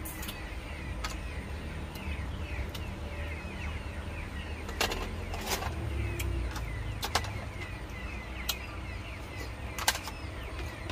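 Oyster shells and a spoon clicking now and then against ceramic plates, about seven sharp clicks, over a steady low rumble and a constant patter of small high bird chirps.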